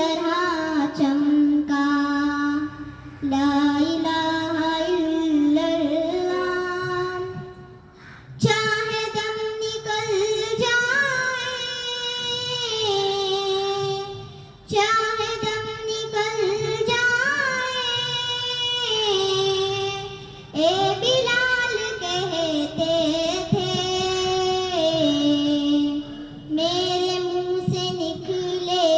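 A young girl singing an Islamic devotional song in long, drawn-out, ornamented phrases, with short breaks for breath between them.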